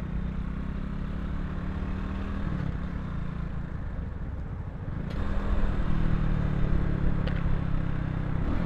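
Vitacci XMT 250 motorcycle engine pulling away and accelerating, with wind and road noise. Its note dips around a shift about two and a half seconds in, then comes back louder about five seconds in.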